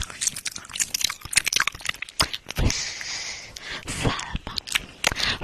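Close-miked wet mouth clicks, smacks and nibbling on the silicone ear of an ASMR microphone, in many short sharp clicks. A breathy hiss comes about halfway through.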